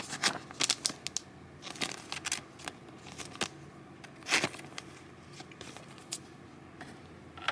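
Trading cards being handled and slid into soft plastic card sleeves: a run of light rustles, flicks and clicks, busiest in the first half and sparser after.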